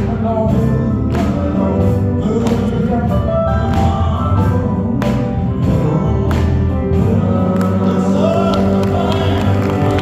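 Live gospel quartet music: a male lead singing over electric guitar with a steady beat. His wavering sung notes stand out more clearly near the end.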